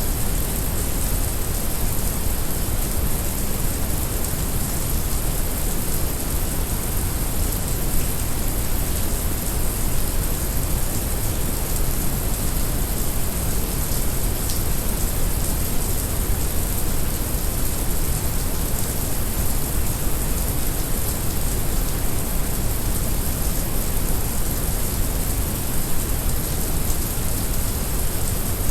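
Heavy rain mixed with brown noise: a steady hiss of rain over a constant low rumble, with no breaks or changes.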